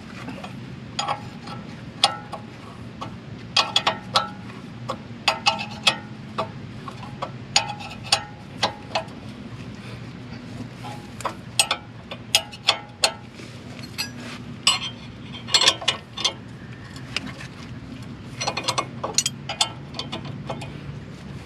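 Steel wrenches clicking and clinking on the caliper bracket bolts as they are tightened, irregular sharp metallic ticks with a brief ring, a few a second, over a steady low hum.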